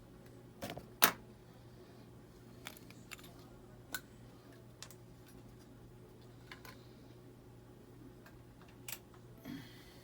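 Scattered small clicks and taps of metal hand tools on an iPhone X logic board as its protective shield is worked off, one sharp click about a second in being the loudest. A steady low hum runs underneath.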